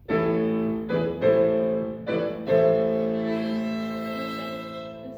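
Violin playing with piano accompaniment: a loud opening chord, a few fresh note attacks in the first three seconds, then a long held chord that slowly fades.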